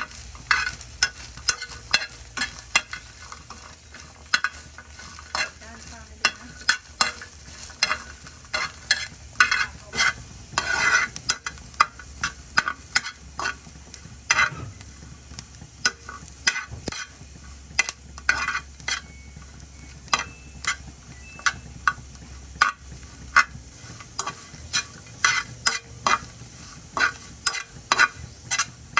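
Irregular sharp knocks and scrapes of a kitchen utensil, about one to three a second, as the fermented-fish dip is stirred or worked. A low hum sits beneath them and stops about three-quarters of the way through.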